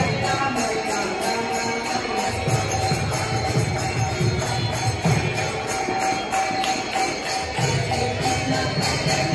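Live Hare Krishna kirtan music: small metal hand cymbals (kartals) struck in a steady rhythm over held tones.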